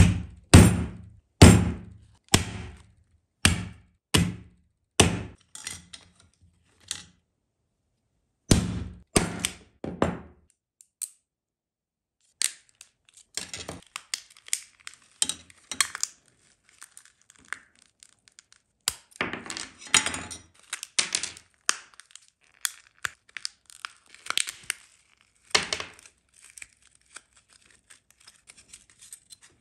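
A hammer striking a plastic fashion doll's head, about ten quick blows that grow lighter, then four more after a short pause. It is followed by rustling and crinkling with sharp plastic clicks as hands pull at the doll's dress and body.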